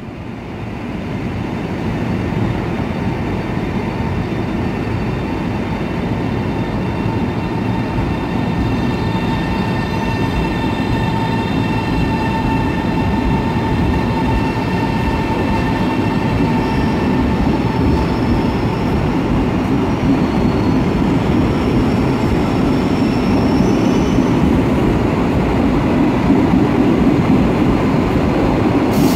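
ED250 Pendolino high-speed electric multiple unit pulling out of the station and rolling past at close range: a steady rumble of wheels on rail that grows gradually louder, with faint high whining tones above it.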